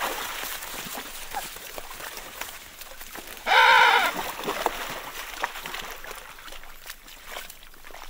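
Emperor penguin giving one loud, pitched call lasting just over half a second, about halfway through, with a slight rise and fall in pitch. Faint scattered clicks and splashes of birds moving at the water's edge around it.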